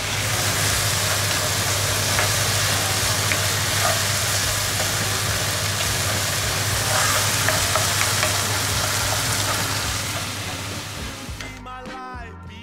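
Diced chicken sizzling in hot oil in a frying pan, with the occasional scrape of a spatula stirring it. The sizzle stops near the end as music comes in.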